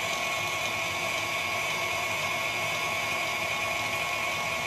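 Electric cheese shredder's motor running steadily with a constant whine, grating a block of cheese.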